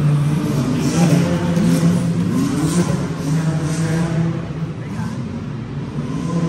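A vehicle engine runs steadily, with two short revs rising in pitch in the first half.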